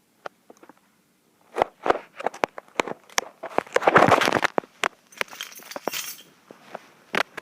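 Irregular clicks, crackles and short rustling bursts, loudest about four seconds in, over a faint steady low hum.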